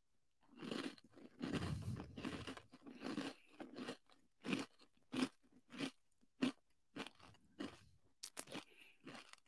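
A person biting into and chewing a crunchy Kodiak Cakes bar: a bite about a second and a half in, then faint crisp crunches about every half second as he chews.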